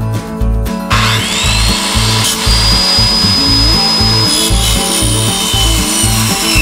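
A circular saw with a metal-cutting blade starts up about a second in, its whine rising to speed, then cuts into the crimped end of a galvanized steel brace tube with a steady high whine and a grinding hiss. Background music with a steady beat plays underneath.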